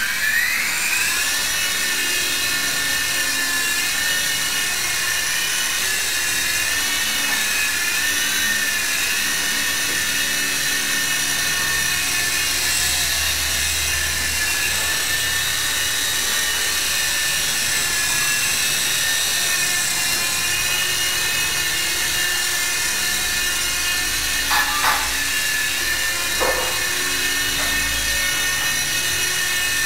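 Electric motors and rotors of a small 3-channel RC helicopter (SH6030) spinning up with a rising whine, then holding a steady high whine in flight, the pitch wavering a little as the throttle changes. A couple of brief knocks come near the end.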